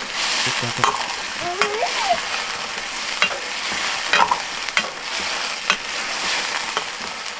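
Pork curry sizzling steadily in a pan while it is stirred, a ladle scraping and clicking against the metal at irregular moments.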